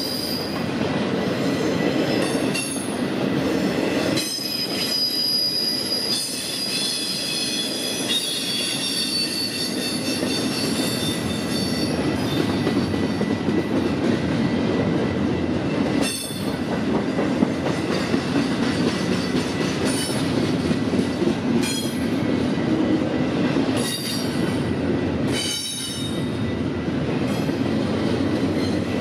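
Canadian National freight train cars rolling past, a steady rumble of wheels on rail. High-pitched wheel squeal comes and goes, strongest through the first ten seconds or so and returning briefly near the end.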